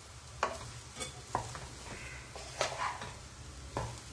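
Wooden spatula stirring and turning rice in a nonstick pot, with about five sharp scrapes and knocks against the pot over a faint sizzle from the hot pan.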